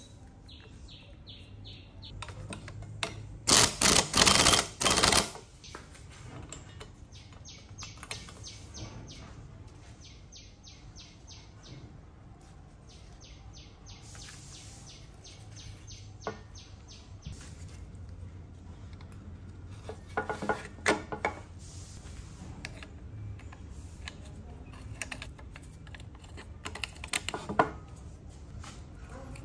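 Hand tools at work on a chainsaw engine during reassembly: several runs of quick, even ratcheting clicks as fasteners are done up, with a few loud bursts of noise about four seconds in and scattered knocks of metal parts later on.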